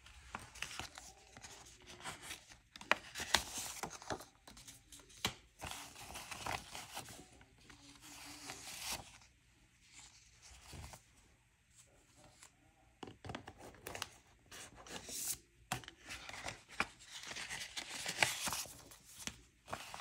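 Paper banknotes and envelopes being handled: quiet, irregular rustling and crinkling with sharp snaps as cash is taken out of savings envelopes.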